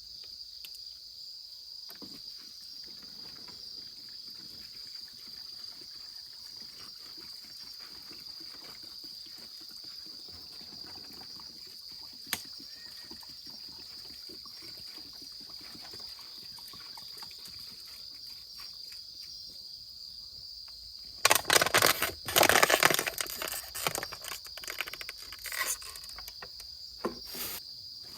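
Crickets chirring in a steady high-pitched chorus. About three-quarters of the way through comes a loud stretch of rustling and knocking, followed by a few softer knocks.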